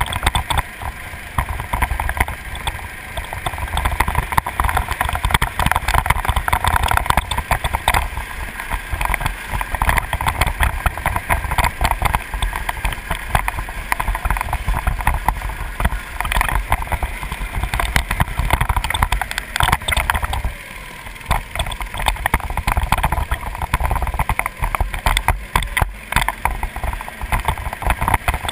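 Go-kart engine running on track, heard from a camera mounted on the kart, with heavy wind buffeting and chassis vibration over it. The sound drops briefly about twenty seconds in, then returns to full.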